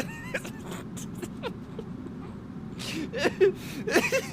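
A man laughing uncontrollably in short, wavering, high gasps. The laughter is faint and broken at first and comes in quicker, stronger bursts from about three seconds in.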